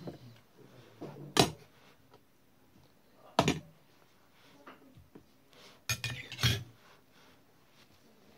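Metal spoon clinking against a steel bowl and plates at the table: four sharp clinks spread over several seconds, the last two close together.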